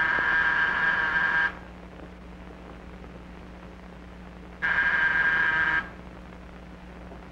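Electric doorbell ringing twice, each ring a steady buzzing tone lasting a second or more, with a pause of about three seconds between them.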